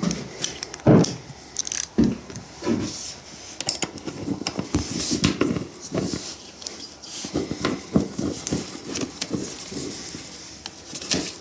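Hands working on a motorcycle: irregular clicks, knocks and rubbing of parts and tools being handled, with a few sharper knocks near the start.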